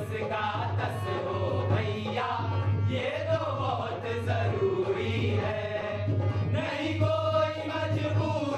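Several men singing a Hindi song together over backing music.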